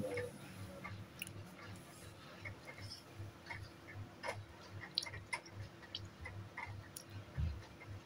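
A toddler eating a chocolate-coated cone ice cream: faint, scattered mouth smacks and little clicks from licking and biting it.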